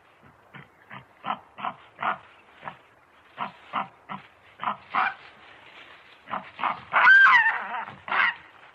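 Baboon giving a rapid series of short grunts, about three a second. About seven seconds in comes a louder call that rises and then falls in pitch, followed by one more loud grunt.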